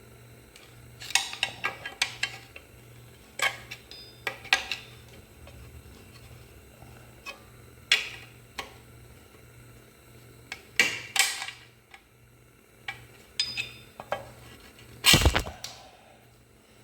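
Hand tools and steel frame parts clanking and clinking in scattered clusters as a part is worked loose, with a heavy thump about fifteen seconds in. A faint low hum pulses evenly underneath.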